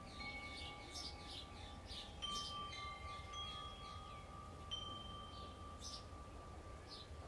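Wind chimes struck now and then and ringing on in long, clear tones, with birds chirping throughout in short, quick falling notes and a low steady rumble of wind beneath.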